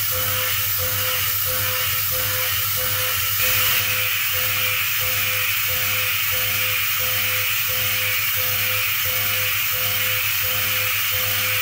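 Background music with a steady pulse, over the steady high hiss of a CNC machining centre's end mill trochoidal-milling a steel block.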